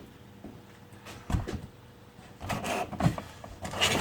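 Cardboard packaging being handled and moved: a single soft knock about a second in, then rustling and scraping with small knocks through the last second and a half.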